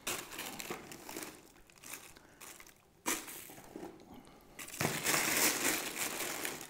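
Bag of dry travertine plaster powder crinkling and rustling as the powder is poured out and portioned by eye, in short bursts at the start and about three seconds in, then a longer, louder pour near the end.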